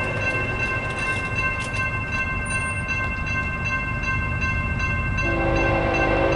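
Grade-crossing warning bell ringing steadily over the low rumble of an approaching train, whose multi-chime horn sounds about five seconds in and holds to the end.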